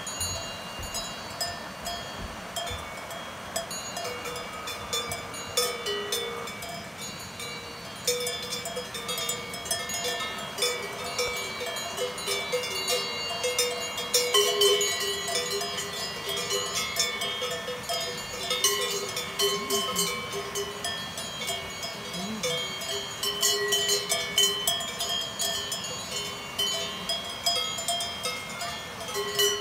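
Several cowbells on grazing cows clanking and ringing irregularly, with overlapping strikes at different pitches.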